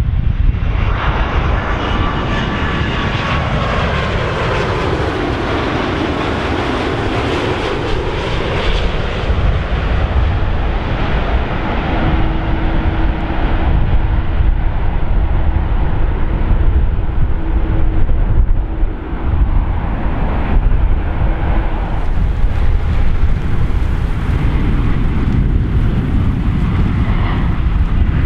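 Boeing 787-9 jet airliner with Rolls-Royce Trent 1000 engines on final approach, passing close by. Its engine whine falls steeply in pitch in the first few seconds as it goes past, over a heavy low rumble, and then settles into a steady drone as it comes over the runway to land. Near the end, the jet engines run for the takeoff roll.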